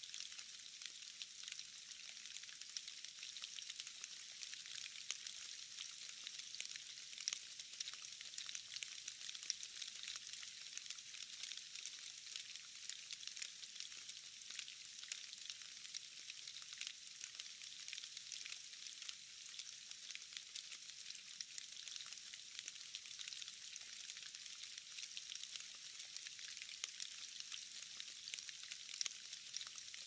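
Rain falling into a puddle: a steady, dense patter of small drops splashing into water, heard as a fine, even hiss full of tiny ticks, with almost nothing deep in it.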